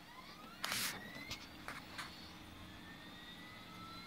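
Desktop PC fans spinning up after power-on, a faint whine that rises slowly in pitch over a steady low hum. A brief rush of noise comes about a second in, with a few light clicks.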